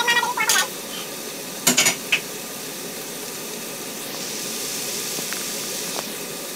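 Chopped food sizzling steadily in a nonstick frying pan on a gas burner. A spatula scrapes the pan at the start, then clacks twice about two seconds in as it is put down, and the sizzle grows a little louder near the end.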